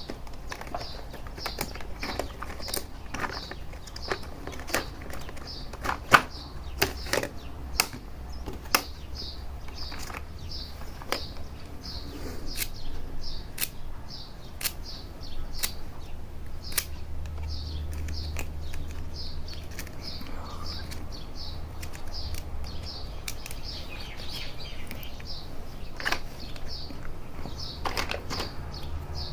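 Small plastic toy kitchen pieces and their packaging being handled, giving sharp clicks and knocks, while a bird chirps steadily in the background, about two short high chirps a second.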